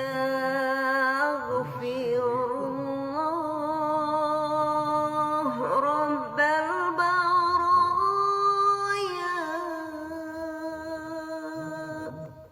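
A single voice chanting a devotional melody in long held notes with wavering ornaments. The pitch climbs to a higher note partway through, and the voice fades out near the end.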